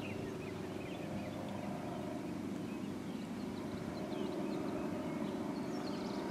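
Outdoor ambience: small birds chirping in short rising notes over a steady low hum.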